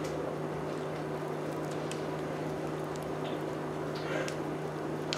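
A steady low hum with faint soft scrapes and light taps as thick chocolate-peanut brownie batter is scraped out of a bowl with a silicone spatula.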